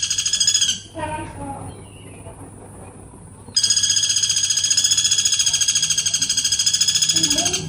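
Woodpecker giving a long, fast, high-pitched rattling trill in two bouts, broken by a pause of about three seconds.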